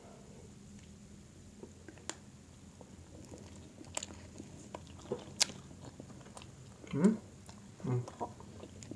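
Close-miked eating: people biting and chewing grilled chicken, with scattered sharp wet mouth clicks and smacks. Two short voiced sounds come from a mouth about seven and eight seconds in.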